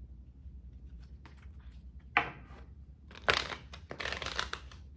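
A deck of tarot cards being shuffled by hand: a few short rustling shuffles of the cards, the loudest about three to four and a half seconds in.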